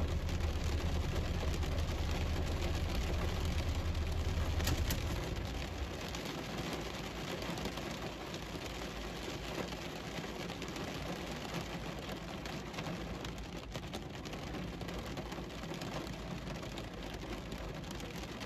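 Heavy rain falling on a car's roof and windscreen, heard from inside the car as a steady hiss. A low hum underneath cuts out about five seconds in, with a faint click as it stops.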